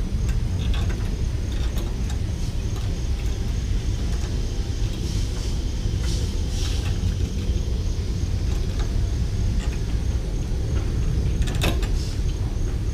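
Light metal clicks and short scrapes from gloved hands working a lawn mower carburetor's throttle linkage and spring, with one sharper click near the end, over a steady low rumble.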